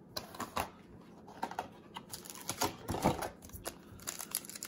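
Hands handling trading cards and a foil card pack: irregular light clicks and taps, with the foil wrapper starting to crinkle about four seconds in.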